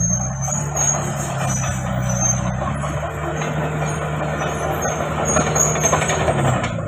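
Komatsu D31PX crawler bulldozer's diesel engine running steadily under work, with a rough rattling noise over the engine hum.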